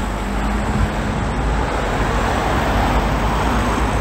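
Road traffic noise: a vehicle passing, with tyre and engine noise swelling in the second half and easing off near the end.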